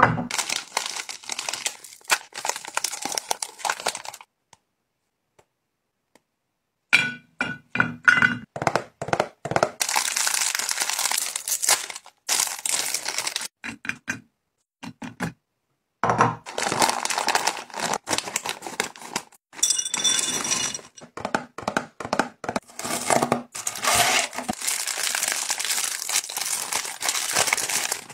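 Snack packaging crinkling and crackling as it is handled and torn open, with clicks and taps as snacks are set out on a platter. It comes in several bursts separated by short pauses.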